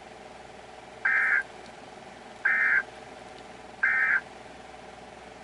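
Emergency Alert System end-of-message data tones: three short, identical bursts of SAME digital code about a second and a half apart, marking the end of the alert. A low steady hum runs under them.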